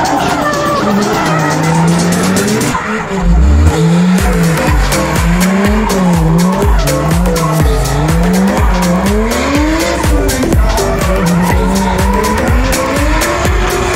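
Drift car sliding sideways, its engine revving up and down over and over, about once a second, as the tyres skid and squeal on the asphalt.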